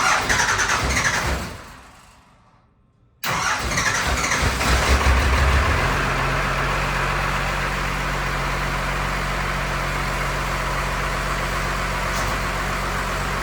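Cummins diesel engine cranking briefly and dying away. A few seconds in it is running, rough and lumpy for the first couple of seconds, then settling into a steady idle. It is catching after air was bled from the injector lines.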